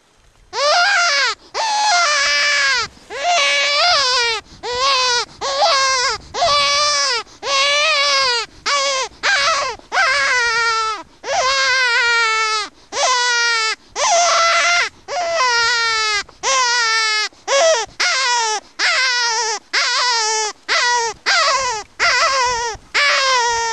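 Predator call sounding a distress call to bring in coyotes: loud, high wailing cries repeated one after another with short breaks, each falling in pitch.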